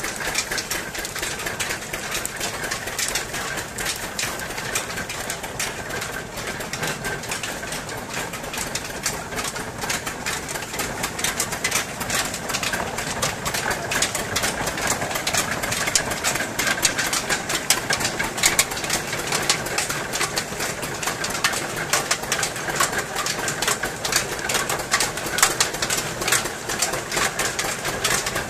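Belt-driven sugarcane crushing mill running: its iron gears and rollers clatter in a fast, steady rattle as cane stalks are fed in and crushed. The rattle grows a little louder about halfway through.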